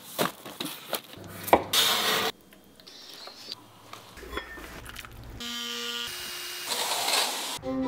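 A run of short handling sounds, knocks and clicks with a rustling burst, then a cordless detail sander: a steady motor whine followed by the rasp of the pad on a wooden board near the end.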